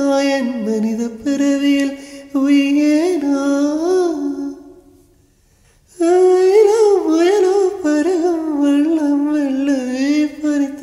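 A man singing a Tamil film song solo, holding long notes with wavering ornaments. He breaks off for about a second and a half near the middle, then resumes.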